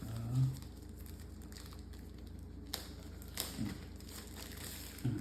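Unboxing handling: packaging rustling and crinkling, with a few light knocks as items are lifted out of the box and set down.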